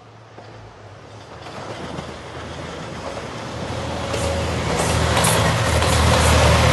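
JR Shikoku 2700 series diesel train approaching, its engine hum and wheel-on-rail noise growing steadily louder. A cluster of sharp clicks from the wheels over rail joints comes about four to five seconds in.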